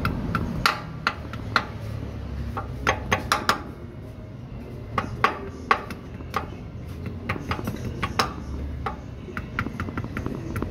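Light metal taps on a new rear crankshaft oil seal as it is tapped around its rim into the bore of a Toyota 1NR-FE engine block. The taps come irregularly, some in quick clusters of two or three.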